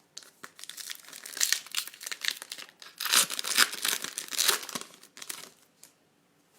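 Trading card pack wrapper being torn open and crinkled by hand: uneven bursts of crackling for about five seconds that stop near the end.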